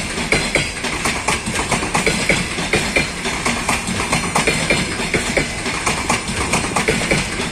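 Double-decker passenger coaches rolling past as the train pulls out, their wheels clattering over rail joints in a quick, uneven stream of clicks, with a steady high tone running underneath.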